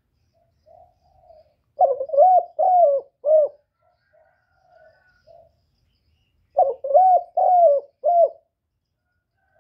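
Spotted dove cooing: two loud phrases of four coos each, about five seconds apart, with softer coos in between.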